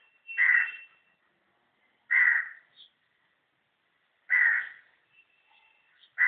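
A bird's harsh calls, repeated about every two seconds.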